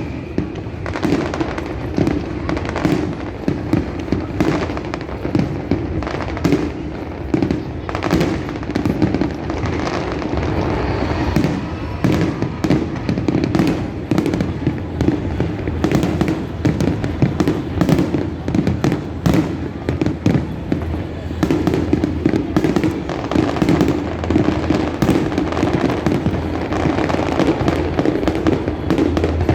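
Fireworks display: a dense, continuous run of bangs and crackling pops, over a steady background rumble.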